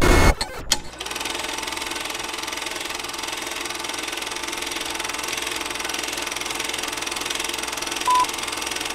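Old film projector sound effect: a steady mechanical running clatter with crackle under a film countdown leader. A short single beep about eight seconds in marks the "two" of the countdown.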